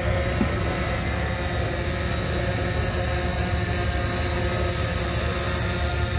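A steady mechanical drone with hiss, holding several even hum tones without change.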